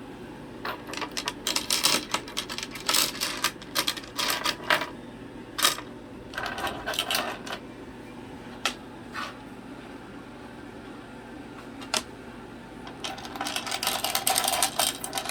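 A cockatoo's beak working a small metal sliding door-lock bolt on a toy board, making bursts of quick metallic clicking and rattling. A few single clicks come in the middle, then another run of rattling near the end.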